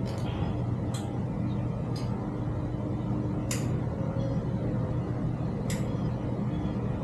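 Light, sharp clicks and taps of metal bike parts and tools being handled during e-bike assembly, five of them spaced a second or more apart, over a steady low mechanical hum.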